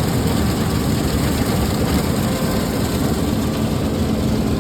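Combine harvester running steadily, its engine and threshing works making a continuous machine noise with a low rumble, and a steady low hum joining about three seconds in.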